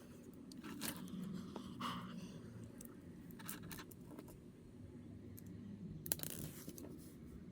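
Small plastic parts of a snap-together figure kit being handled and fitted by hand: a few scattered clicks and scrapes, strongest about six seconds in.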